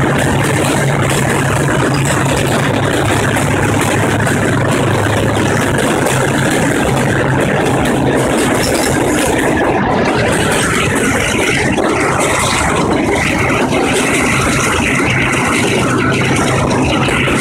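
Passenger train running on the rails, heard from the coach: a loud, steady rumble and rattle of the carriage and wheels. A low hum under it fades about ten seconds in, as the coach comes out of the rock tunnel into the open.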